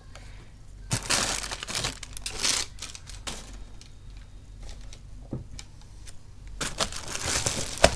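Plastic packaging and bubble wrap crinkling as it is handled, in bursts about a second in and again near the end.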